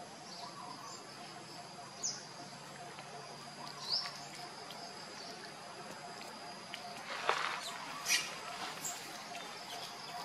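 Outdoor ambience: a steady high insect drone with a few short rising chirps, and two sharp rustles or clicks about three-quarters of the way through.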